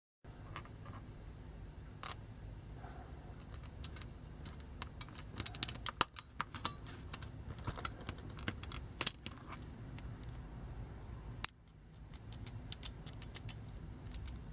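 Small plastic toy parts and a little spring being handled, giving irregular light clicks and taps over a low steady hum.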